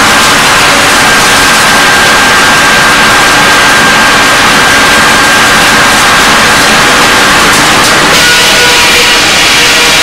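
Sawmill machinery running loud and steady, a mechanical din with a high whine through it; the whine changes pitch about eight seconds in.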